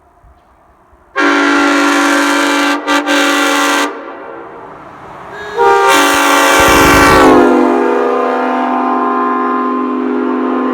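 Nathan Airchime M5 five-chime air horn sounding a multi-note chord in two blasts. The first lasts about three seconds and cuts out twice for an instant. The second comes in about five seconds later, its pitch sliding briefly over a low rush of air before the chord holds steady.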